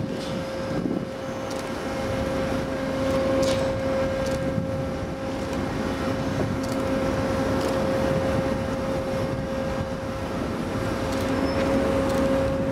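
Ship's deck crane machinery running steadily: a constant mechanical hum with a held mid-pitched whine.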